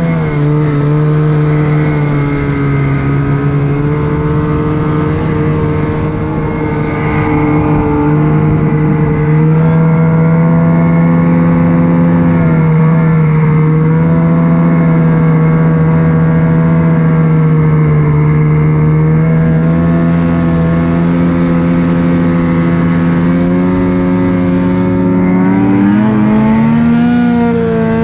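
Ski-Doo Summit 850 two-stroke snowmobile engine running hard under throttle at nearly steady high revs, its pitch rising near the end.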